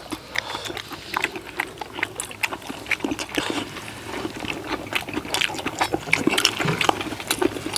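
People eating spicy stir-fried webfoot octopus with rice: chewing and lip-smacking, with many short clicks of spoons scraping and tapping the wide metal pan and steel bowls.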